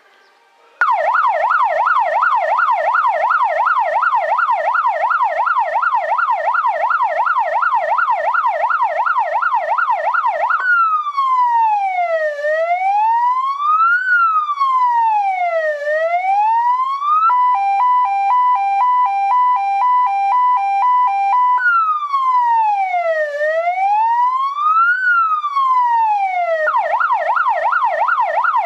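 Electronic siren on a Volkswagen fire brigade light rescue van, switched on about a second in and cycling through its tones: a fast yelp of about three sweeps a second, then a slow rising and falling wail, then a two-tone hi-lo, the slow wail again, and back to the fast yelp near the end.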